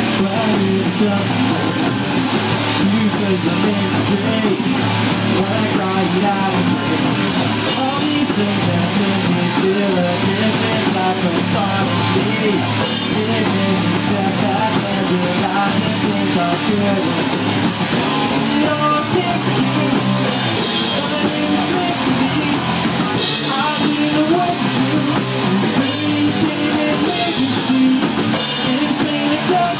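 Rock band playing a song: two electric guitars, an electric bass and a drum kit, with cymbal strokes keeping a steady beat.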